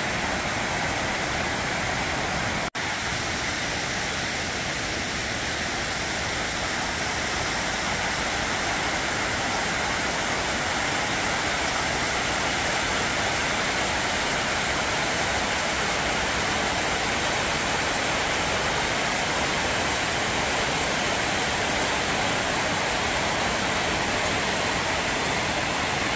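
Water pouring over a low concrete dam spillway: a steady, even rushing, broken by a momentary dropout about three seconds in.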